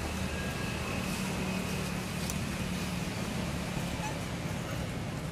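Steady outdoor background noise with a continuous low hum like vehicle traffic or an engine, and a faint thin high tone over it.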